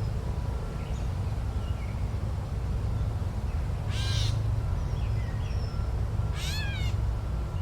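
Forest ambience: a large bird gives two harsh cawing calls, about four and six and a half seconds in, over a steady low rumble, with faint chirps of small birds.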